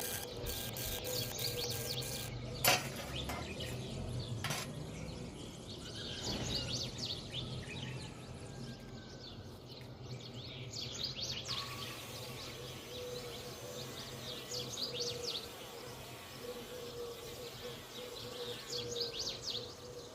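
Birds chirping in repeated quick high bursts over a steady low hum, with two sharp knocks, one about two and a half seconds in and one about four and a half seconds in.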